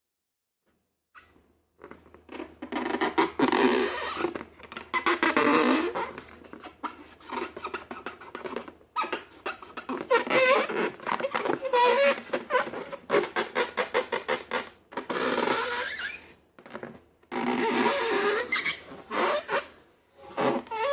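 Slime being squeezed and worked, making wet squelching with squeaky, fart-like air pops, starting about a second in after a moment of silence.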